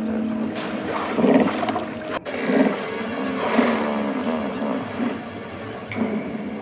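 Hippopotamus calling: several deep, grunting calls that waver in pitch, the first about a second in and more following close together.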